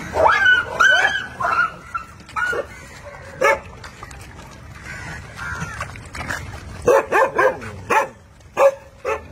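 A pack of dogs barking and yelping as they crowd around food being put down. There is a flurry of calls near the start and another, denser one about seven seconds in.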